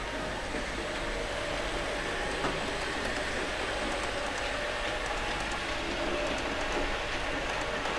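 HO-scale model passenger train running along the layout's track: a steady rolling noise with a faint hum, and light wheel clicks over the rail joints from about three seconds in.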